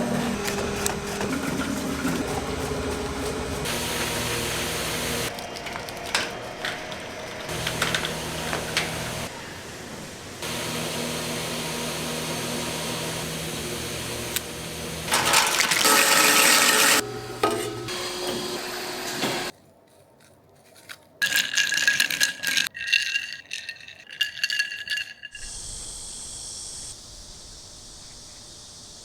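Processing-plant machinery noise in a series of abrupt cuts: steady machine running, rattling and water noise, then a quiet moment and scattered clicks with short high tones.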